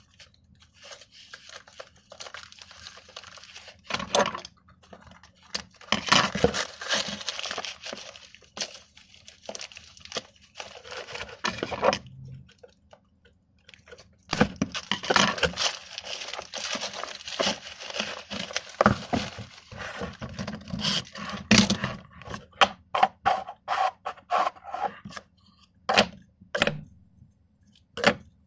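Crinkling and tearing of newspaper-like paper wrapping as it is pulled off a stack of plastic sport stacking cups, in long rustling stretches with a short pause in between. Near the end come a series of sharp plastic clacks as the cups are handled and set down.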